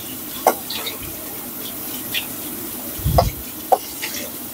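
Salmon steak frying in hot oil in a non-stick pan: a steady sizzle broken by a few sharp pops of spitting oil.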